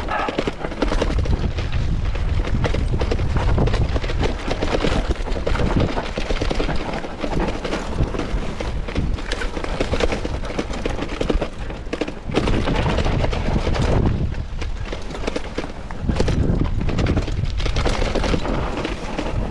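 Mountain bike clattering down a rough dirt trail: tyres rolling over dirt and roots, with many quick knocks and rattles from the frame and chain over bumps, over a steady low rumble.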